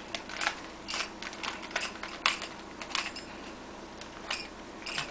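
Rubik's Cube being turned by hand: its plastic layers click and clatter as they rotate, in irregular quick runs of clicks.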